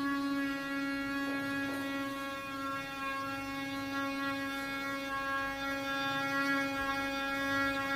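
Small DC water pump and cooling fan of a homemade copper-coil cooler running, a steady electric hum with a row of even overtones.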